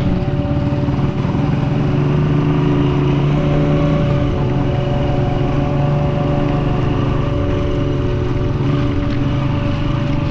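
Vehicle engine running steadily while driving, with road noise, its pitch shifting slightly about three and a half seconds in.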